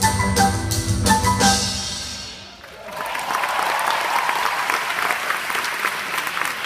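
Music with a regular drum beat and bright pitched notes, fading out over the first two and a half seconds; then a crowd applauding from about three seconds in.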